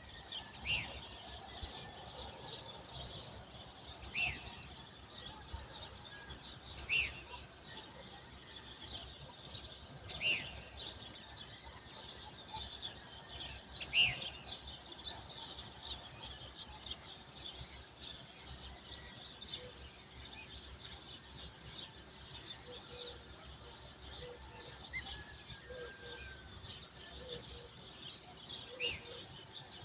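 Dawn chorus of many small birds chirping and twittering. A louder call stands out about every three to four seconds through the first half, and short low notes repeat through the second half.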